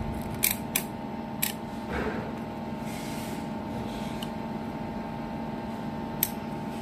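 Sharp clicks of a digital multimeter's rotary range selector snapping through its detents: three within the first second and a half and one more near the end, over a steady electrical hum.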